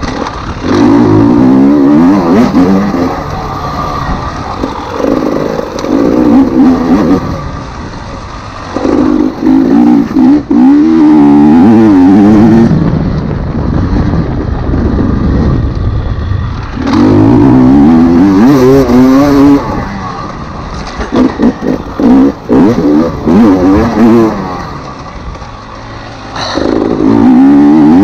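Enduro dirt bike engine revving hard in about six loud bursts of one to four seconds, dropping back between them as the throttle is rolled off and on over rough ground.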